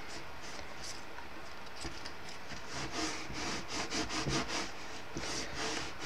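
Fingers rubbing and pressing strips of thin card together while gluing them into a paper flower stem: a quick series of short, dry rasping strokes, starting about halfway through.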